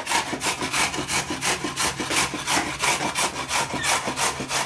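Rhythmic scraping strokes, about four a second and very even, over a steady low hum.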